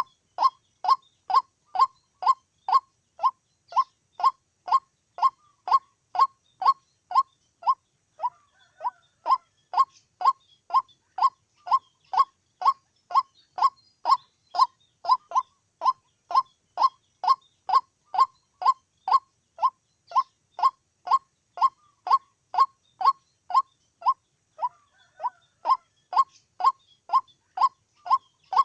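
White-breasted waterhen calling a short, monotonous note over and over, evenly spaced at about two a second.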